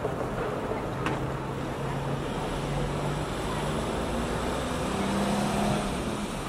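Road traffic ambience with a vehicle engine's low hum that rises in pitch near the end, and a single sharp click about a second in.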